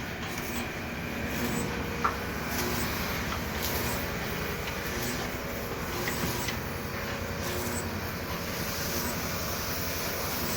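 A machine or engine running steadily with a fast, even pulsing, with a few light clicks and knocks.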